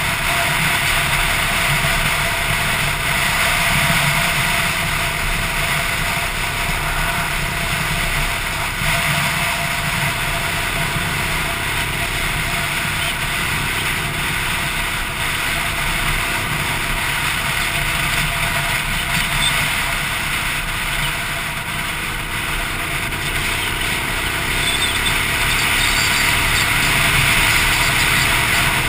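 Motorcycle engine running steadily at cruising speed, heard from on the bike, mixed with a constant rush of wind and road noise.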